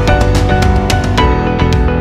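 Background music: a loud instrumental track with drum hits over held notes.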